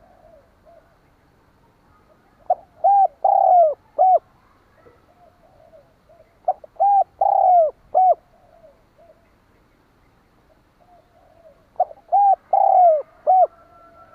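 Spotted dove (tekukur) cooing in three phrases about four to five seconds apart. Each phrase is a short note and a few quick coos with one longer falling coo. Fainter, softer coos come between the phrases.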